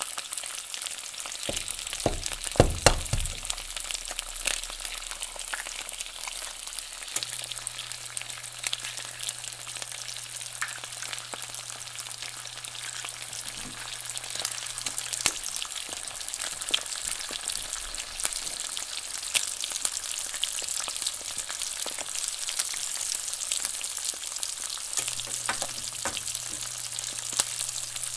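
Eggs frying in hot oil in a nonstick skillet, a steady sizzle with small popping spatters throughout. About two to three seconds in, a quick cluster of loud sharp knocks as another egg is cracked and added to the pan.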